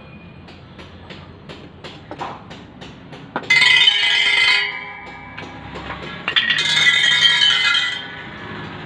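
Steel spokes of a freshly laced and tightened motorcycle rear wheel on a truing stand: light, evenly spaced ticks, then twice a loud metallic ringing clatter, about a second and then nearly two seconds long, as the spokes are struck in turn. The ringing comes from spokes under full tension.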